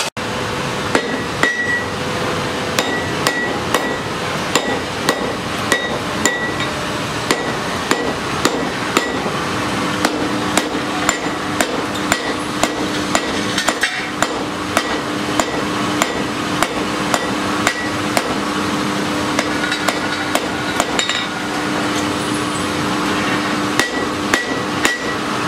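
Blacksmith's hammer forging hot steel on an anvil: a long, steady run of sharp, briefly ringing blows, about two a second, over a continuous background rush.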